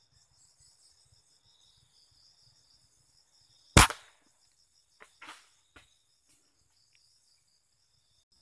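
A single sharp air-rifle shot about four seconds in, followed a second or two later by a few softer clicks and knocks. Insects chirr steadily in the background.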